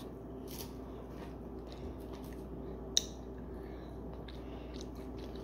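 Soft mouth sounds of a person eating finger food: quiet chewing and wet lip smacks, with a sharp click about three seconds in. A faint steady hum runs underneath.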